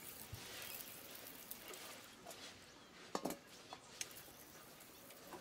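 Faint splashing of water poured from a watering can rose onto cast-iron bench frames and a concrete slab, dying away after about two seconds. A few faint clinks follow, the loudest a little after three seconds.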